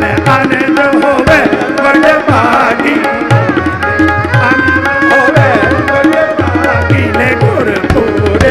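Instrumental kirtan interlude: harmoniums play the melody over a steady tabla rhythm.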